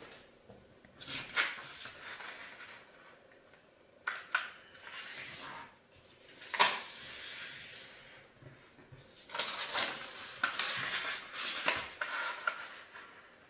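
Origami paper being handled and folded: bursts of crinkling and rustling with a few sharp crisp snaps as folds are creased, the loudest about two-thirds of the way through.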